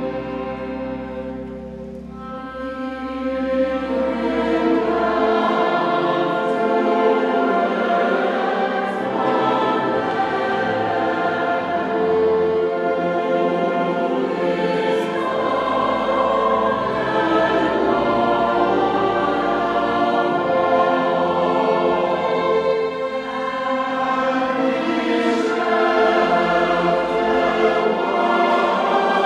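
A choir singing with orchestral accompaniment; it swells in loudness about three seconds in, after a short orchestral passage.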